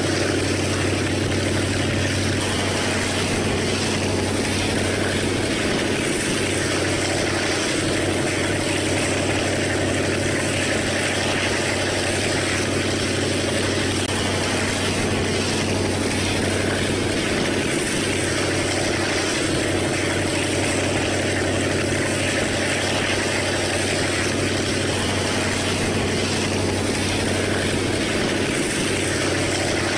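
TCDD DE 24000 diesel-electric locomotive running steadily at the head of a moving train, heard from a passenger car window further back: an even engine drone mixed with the train's running noise.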